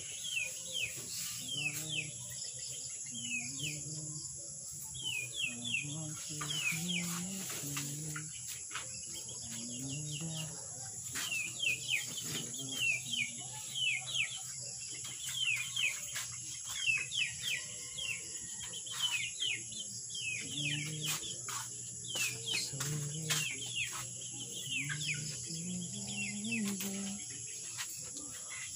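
Small birds chirping over and over in short, quick, falling notes, often in clusters of two to four, over a steady high-pitched insect drone. Occasional short clicks and rustles.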